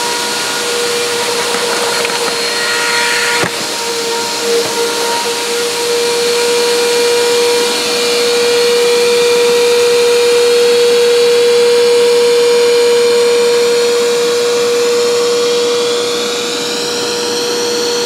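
Insignia bagless upright vacuum cleaner running steadily, a constant motor whine over rushing air. A single sharp click comes about three and a half seconds in, and the whine grows a little louder from about eight seconds in.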